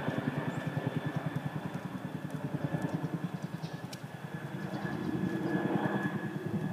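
An engine running steadily with a fast, even pulse and a faint whine.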